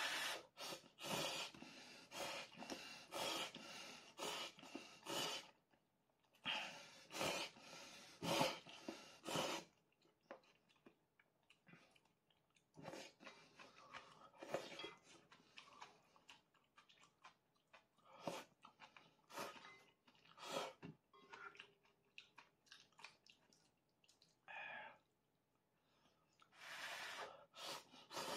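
Instant ramen noodles being slurped with the mouth close to the pot. The slurps come in runs of quick pulls, separated by pauses of a few seconds.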